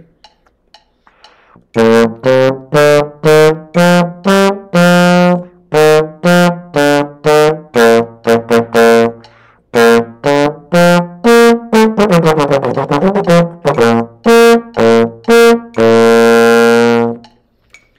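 Trombone playing an eight-measure line at a tempo of 120, mostly in short separate notes, starting about two seconds in and ending on a long held note. About twelve seconds in comes a quick run of notes, the sixth measure, which the player judges the problem spot, a matter of technique.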